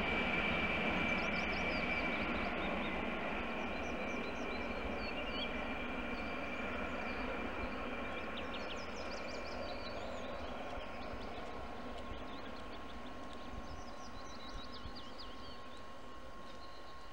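Passenger train on a high-speed line receding after a run-past: its rush and a steady high whine slowly fade away. Birds chirp over the dying train noise.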